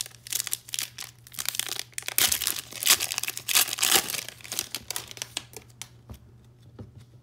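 Foil trading-card pack (2021 Panini Mosaic Football) being torn open and its wrapper crinkled in the hands. The crackling is loudest about two to four seconds in, then trails off as the cards come out.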